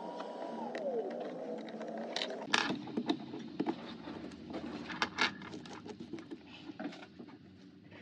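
A few gliding tones trailing off from an intro jingle in the first second or so, then scattered soft clicks and light scrapes as an adhesive syringe in a hand-held dispensing gun is worked around an opened iPhone 11 back frame.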